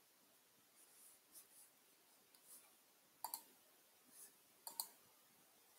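Near silence, broken by two pairs of faint computer mouse clicks, one about three seconds in and one near five seconds.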